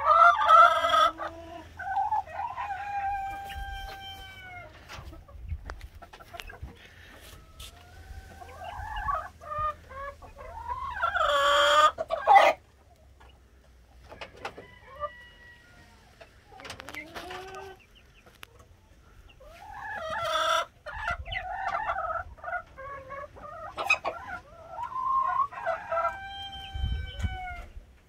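Flock of five-week-old chicks peeping and clucking as they feed, with repeated short calls that glide down in pitch. A rooster crows once, loudly, a little before the middle.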